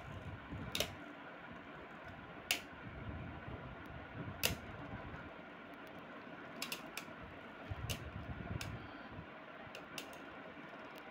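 Two Beyblade Burst tops, Victory Valtryek and Storm Spriggan, spinning with a faint steady whir in a plastic-lined cardboard-box stadium. They collide with sharp clicks every second or two.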